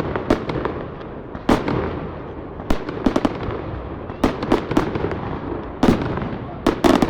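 Fireworks display: shells bursting in a string of sharp bangs at irregular intervals, several in quick succession around three and five seconds in, with steady noise between the bangs.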